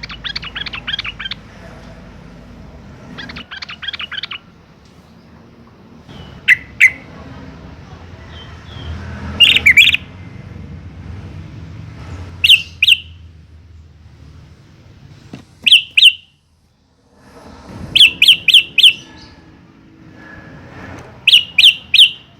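Sooty-headed bulbul (trucukan) singing: loud, short phrases of two to four quick notes repeated every few seconds, with fast softer chattering near the start.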